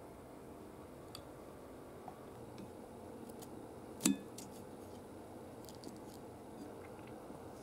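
Quiet room tone with a few faint clicks; about four seconds in, one sharp click of wooden chopsticks tapping the bowl while picking at pieces of simmered kabocha squash.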